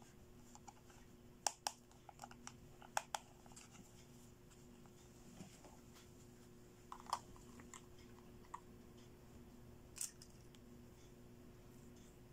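Small hard-plastic toy accessories clicking and tapping as they are handled and set down: a quick cluster of sharp clicks in the first few seconds, then a few single clicks spread out, over a faint steady hum.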